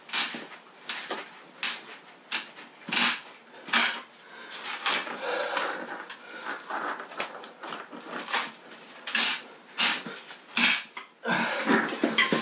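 A man grunting and breathing hard, in short bursts about once a second, as he repeatedly leans on long-handled cable cutters biting into a steel lock. The jaws crunch through the lock as he works.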